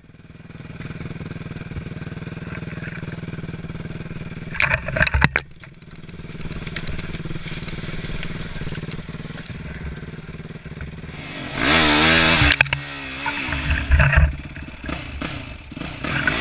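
Yamaha YFZ450R quad's single-cylinder four-stroke engine running at low speed on a trail, with short loud bursts of throttle about five seconds in and a hard rev, rising and falling, around twelve seconds in.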